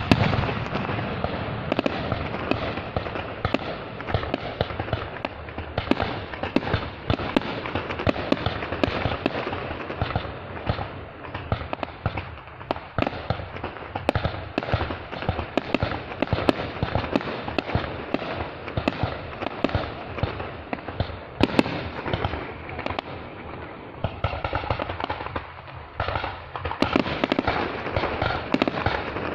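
Fireworks going off continuously: a dense, unbroken run of pops and bangs, many a second.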